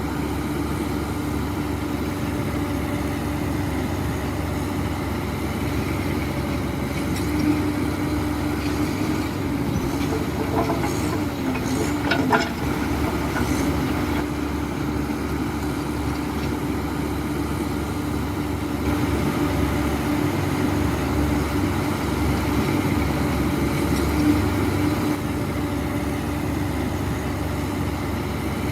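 Heavy diesel earthmoving machine running steadily with a constant low hum, with a few brief metallic clanks near the middle.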